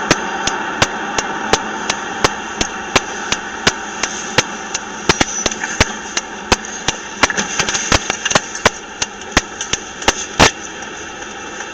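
Car running, heard from inside the cabin as a steady hum, with a sharp click repeating about three times a second.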